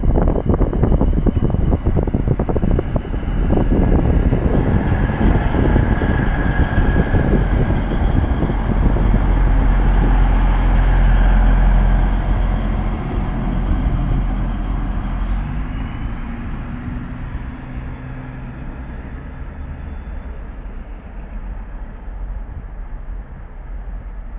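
SNCB AR41 diesel multiple unit running close past, with wheel clatter over the track in the first few seconds and a steady diesel engine note. The sound is loudest about halfway through, then slowly fades as the train moves away.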